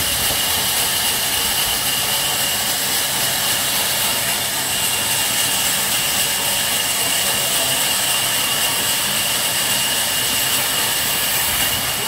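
Sawmill band saw running steadily, a continuous hiss with a high whine held on one pitch.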